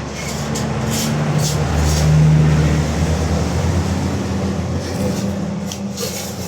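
A motor vehicle's engine running, growing louder to a peak about two seconds in and then slowly fading, as when a vehicle passes by. A few short clicks sound over it.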